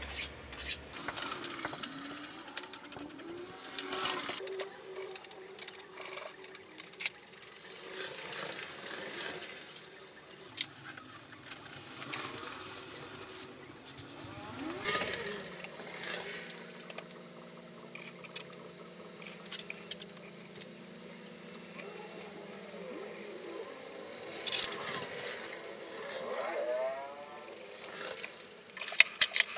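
Hand-work sounds on aluminum flat stock: a file rasping along the plate's edge, then scattered metal clinks and knocks as the plate and hold-down clamps are set on the mini mill's table.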